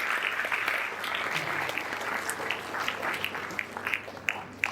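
Audience applauding. The applause dies down over a few seconds to scattered single claps near the end.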